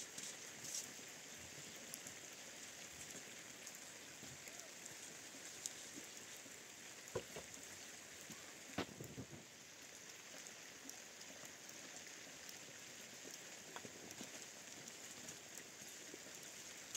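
Faint, steady rain: an even hiss with scattered ticks of drops. Two louder knocks come about seven and nine seconds in.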